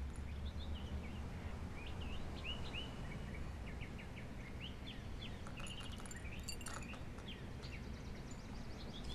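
Small birds chirping in quick, scattered short calls over a steady low background hum.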